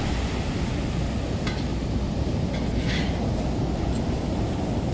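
Wind rushing over the microphone over a steady wash of surf, with a couple of faint clicks from handling a webbing belt and its metal buckle.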